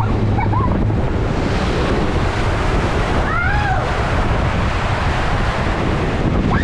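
Water rushing under a tube raft speeding down a water slide, with wind buffeting the camera microphone: a loud, steady rush. A short high squeal rises and falls about halfway through.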